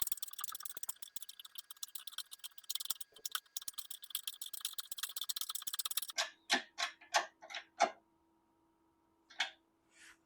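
Rapid mechanical clicking for about six seconds, then a run of slower, louder single clicks, and two more clicks near the end.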